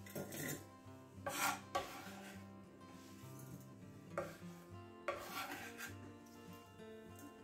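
A chef's knife and hand scraping sliced red chillies across a wooden chopping board into a stainless steel saucepan: a few short scrapes, the loudest about one and a half seconds in, over soft background music.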